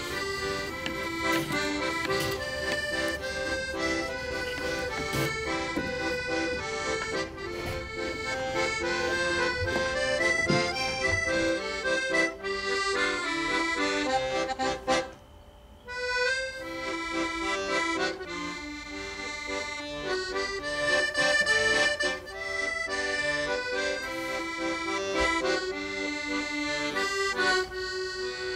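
Background music: a solo accordion playing a comical, Paris-style tune. The music breaks off for about a second halfway through.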